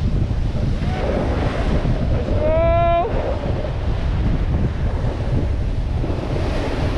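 Wind buffeting the action camera's microphone over the rushing slide of a snowboard on snow during a fast downhill run. About two and a half seconds in, a person lets out a short, high, held yell.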